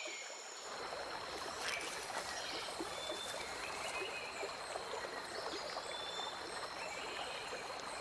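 Quiet river ambience: water trickling and lapping with fine crackles, and a thin, steady high tone above it.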